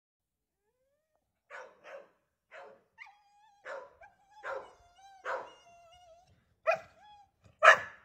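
Staffordshire bull terrier barking: about eight short single barks spaced under a second apart, the last two much louder.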